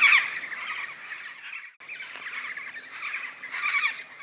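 Major Mitchell's (pink) cockatoo calling: quavering, screechy cries, one loud call at the start followed by a few fainter calls from about two seconds in.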